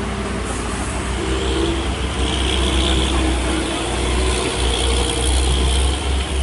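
Heavy truck's diesel engine running hard with a deep steady rumble, climbing a steep grade. A high hiss joins about two seconds in.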